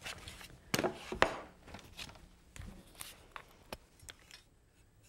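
A wooden board being handled on a wooden workbench: a string of separate knocks and taps of wood on wood, the loudest about a second in.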